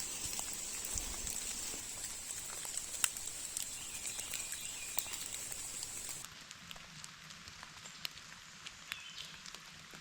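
Light rain falling in a forest, a steady hiss with scattered drops ticking on leaves. The hiss drops suddenly to a quieter level about six seconds in, while the drops keep ticking.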